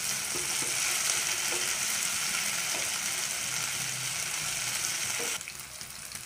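Marinated prawns sizzling in hot coconut oil in a nonstick pan: a steady frying hiss with a few faint knocks from turning them. About five seconds in the sizzle drops suddenly to a quieter level.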